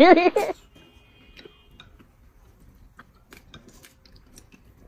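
A burst of high-pitched, warbling laughter cuts off about half a second in. Then come quiet eating sounds: scattered light clicks of chopsticks on porcelain bowls, and chewing.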